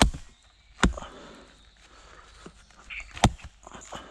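Axe striking into a long log to split it: three sharp, loud chops, two close together at the start and a third about two and a half seconds later.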